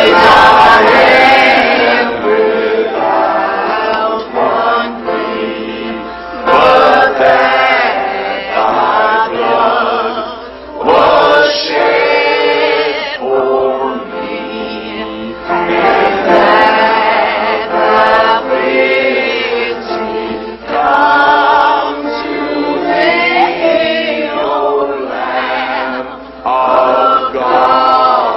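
Church congregation of men and women singing a hymn together, line by line with short breaths between phrases.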